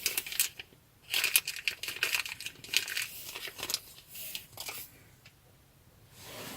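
Plastic packaging crinkling and crackling as it is handled, in irregular bunches with short quiet gaps between them.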